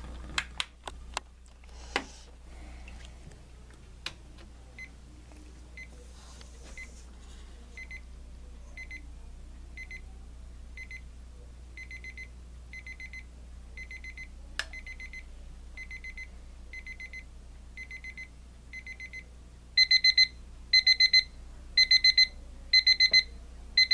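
Braun BNC005 travel alarm clock's crescendo alarm: short bursts of rapid high-pitched beeps about once a second, starting faint and getting steadily louder, loudest over the last few seconds. A few sharp clicks from handling the clock come before the beeping starts.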